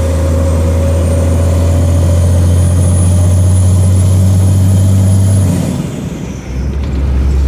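Engine of the vehicle being driven, heard from inside the cab on an uphill climb, droning steadily and rising slightly in pitch. About six seconds in it drops away briefly and comes back at a lower note, as at a gear change.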